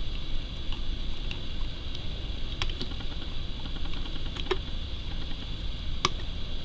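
A metal loom pick clicking and ticking against the pegs of a sock loom while knitting over, in a few scattered light clicks, the loudest near the end, over a steady hiss.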